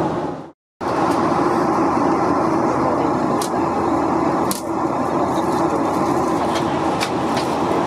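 Steady in-flight cabin noise of a Boeing 737-800: airflow and its CFM56-7B engines heard from a front-row window seat, with a low hum. It drops out for a moment about half a second in, and a few faint clicks sound over it.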